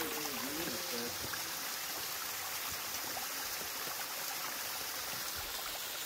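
Small waterfall pouring down a rock face onto rocks: a steady rush of falling water.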